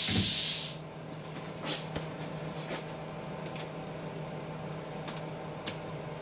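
Pneumatic power drawbar on a Tormach PCNC 1100 mill hissing loudly with compressed air through the spindle as a tool holder is pushed in, cutting off under a second in as the tool is clamped. After it, a steady low machine hum with a couple of faint clicks.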